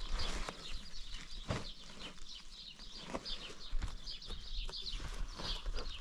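Birds chirping repeatedly in the background, with scattered knocks and rustles as bundles are handled and loaded onto a donkey, over a low steady rumble.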